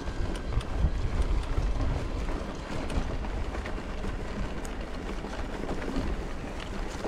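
Mountain bike riding down a dirt trail: wind buffeting the microphone over a steady rumble of tyres on the ground, with scattered small clicks and rattles.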